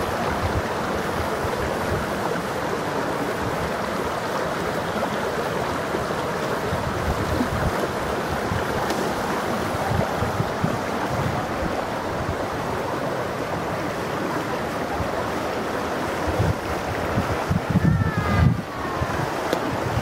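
Woodland stream rushing steadily over stones and small cascades. Near the end, low gusts of wind buffet the microphone.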